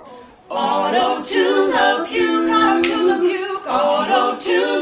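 Small group of young men and a woman singing together a cappella, with no instruments, coming in about half a second in.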